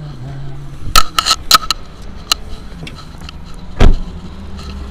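Handling noise of hands on a camera: a quick run of sharp clicks and knocks about a second in, one more click, then a heavy thump near the end, over a steady low hum.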